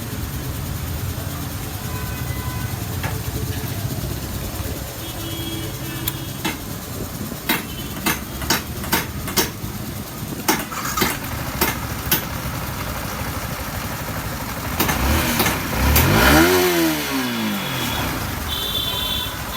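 Yamaha R15 V4's single-cylinder engine running steadily after a new timing chain, bearing and rocker, which the mechanic calls completely smooth. Midway there is a run of sharp clicks, and near the end the engine revs up and drops back.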